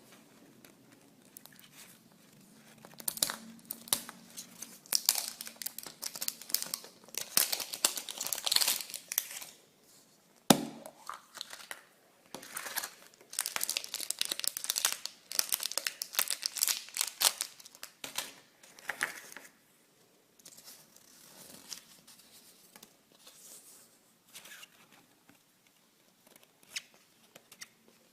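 Wrapping being torn open and crinkled by hand, in repeated crackling bursts, with one sharp click about ten seconds in and sparser, fainter crinkles over the last third.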